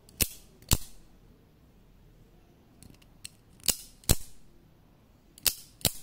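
MS20 mini out-the-front automatic knife with a zinc-aluminium alloy handle and a scalpel blade, its spring firing the blade in and out with sharp metallic snaps. It does this three times, each cycle a pair of snaps about half a second apart, with a couple of faint ticks from the slider between them.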